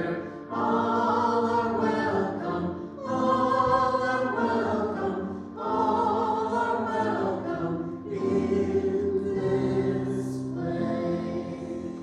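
A church congregation singing a hymn together in phrases of a few seconds each, with held notes. The last phrase grows softer near the end.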